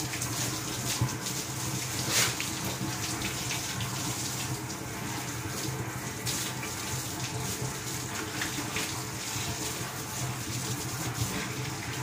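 Water running from a garden hose, splashing steadily over a lamb and onto a concrete floor, with a short knock about two seconds in.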